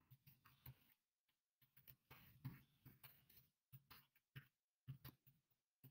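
Faint keystrokes on a computer keyboard as text is typed, a few light clicks scattered among near silence.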